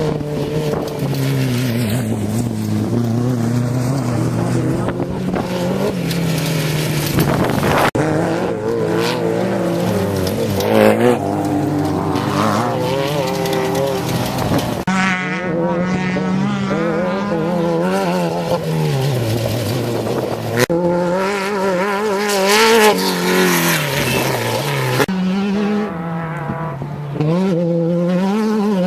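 Off-road race vehicle engines running hard, their pitch rising and falling as they rev up and back off over and over. The sound changes abruptly several times, as separate stretches follow one another.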